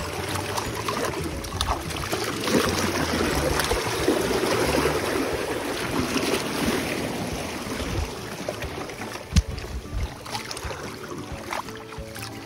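Small waves sloshing and washing over shoreline rocks around a wading person's legs, with a single sharp knock about nine seconds in.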